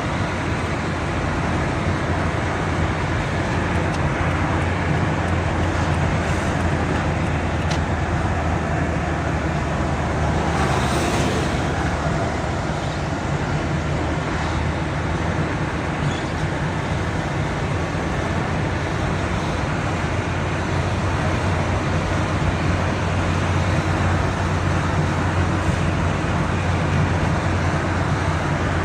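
Steady road and engine noise of a car driving, with a low steady hum. About eleven seconds in there is a brief louder whoosh of a vehicle passing.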